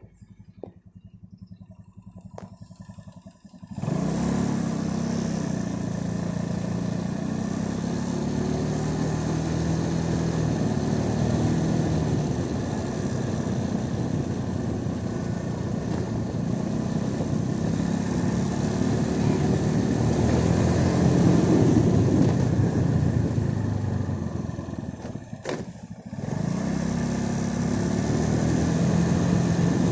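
Motorcycle engine running on the move, its pitch rising and falling with the throttle, with wind rushing over the microphone. It comes in abruptly about four seconds in and dips briefly near the end, with a click, before picking up again.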